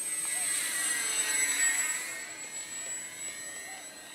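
Electric RC motor glider's brushless outrunner motor (2212, 2200kv) and small propeller whining in a low fly-by, building to its loudest about a second and a half in and then fading as the plane pulls away.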